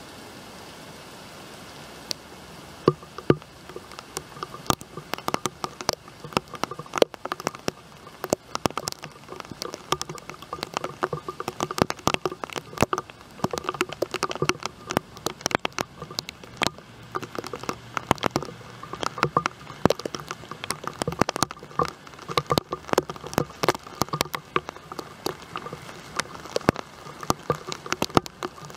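Heavy rain: large raindrops striking close to the microphone as separate sharp taps over a steady rain hiss. The taps begin about two seconds in and grow denser.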